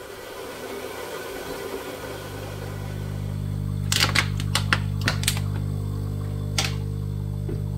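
A small electric motor in the kitchen starts about two seconds in and hums steadily, over a hiss. A quick run of sharp clicks comes around the middle and one more click follows later.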